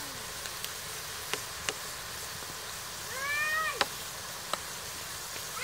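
A cat meows once, a drawn-out call lasting just under a second about three seconds in, with another meow starting at the very end. Around it are a few sharp clicks over a steady background hiss.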